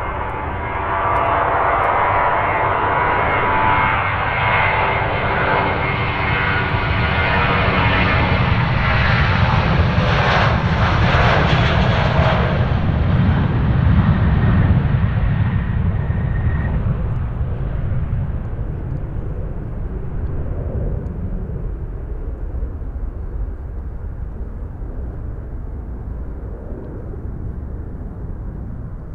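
Airbus A320's twin jet engines at take-off thrust during the take-off roll and climb-out, with several whining tones through the first dozen seconds. Loudest about halfway as the aircraft passes, then fading and growing duller as it climbs away.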